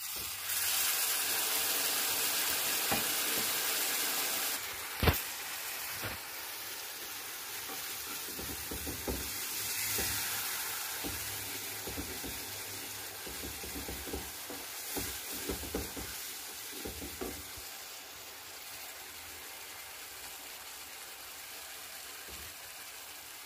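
Water poured into a hot frying pan of fried onions and berbere sauce hisses up into a loud sizzle, which eases after about four and a half seconds. A sharp knock comes about five seconds in, then the sauce keeps sizzling more quietly while a wooden spoon stirs it, knocking softly against the pan.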